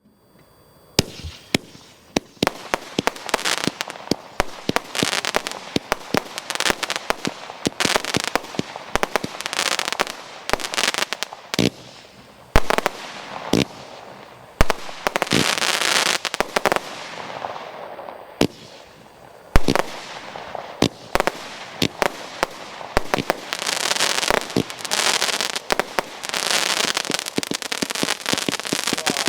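A 100-shot firework cake (16–25 mm calibre, vertical-firing) going off in quick succession: sharp launch thumps and bangs from about a second in, with crackling bursts filling the gaps, and no let-up to the end.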